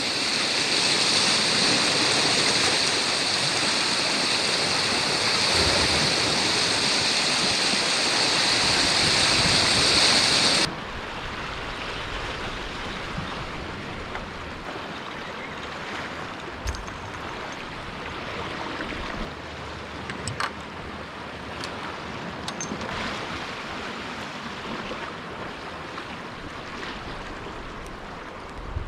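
Sea surf washing against a rocky shore, with wind. For about the first ten seconds a louder steady high-pitched hiss sits over it and then cuts off suddenly. After that the surf is quieter, with a few faint clicks.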